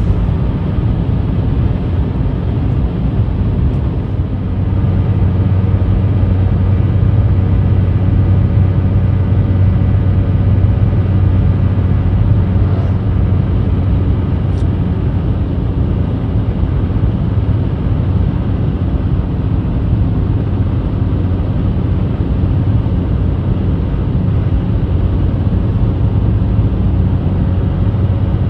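Steady engine hum and road noise heard from inside a moving vehicle's cabin while driving at a constant speed.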